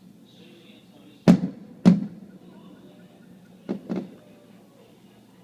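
Fireworks shells bursting: two loud bangs about half a second apart, then two fainter bangs close together about two seconds later, each trailing off briefly.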